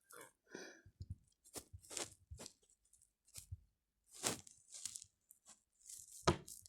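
Faint, scattered short rustles and clicks, a dozen or so brief irregular noises.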